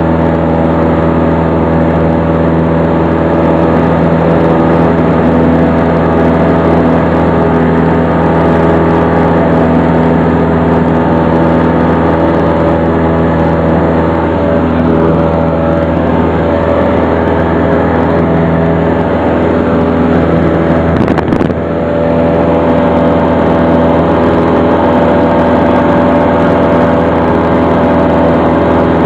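Light aircraft's engine and propeller running at a steady, unchanging drone, heard from inside the cabin. The sound dips briefly once, with a click, about two-thirds of the way through.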